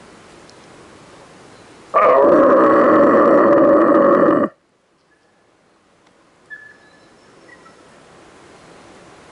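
Red deer stag roaring: one loud, steady roar lasting about two and a half seconds. It starts suddenly with a brief rise in pitch about two seconds in and stops abruptly.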